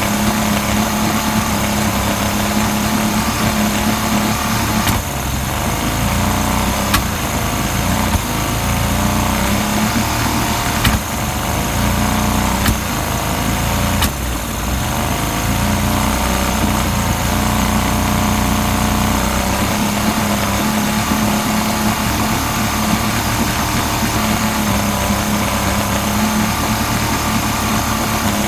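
Yamaha 50D engine idling, its steady note broken by brief stumbles every few seconds: a misfire.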